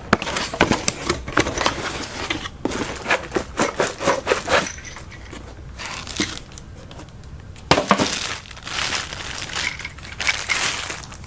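Packaging being opened and handled by hand while a camera stabilizer handle is unboxed: irregular crinkling and crackling, with a quieter lull in the middle.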